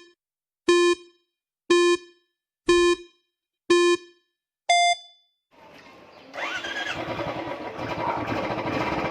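A countdown of beeps, one a second: five short beeps on one low pitch, then a higher final beep. About a second later a motorcycle engine starts up and keeps running.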